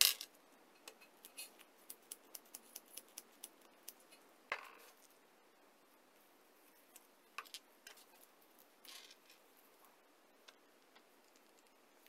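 Small metal parts of a utility-knife body and a bolt handled with gloved hands: a sharp click at the start, a quick run of light ticks, then a heavier knock. Later, scattered clicks and a short rustle as a small plastic thread-locker bottle is handled and opened.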